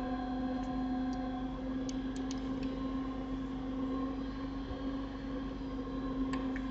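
Steady electrical hum and hiss of the recording setup, with a few faint computer mouse clicks about two seconds in and once near the end.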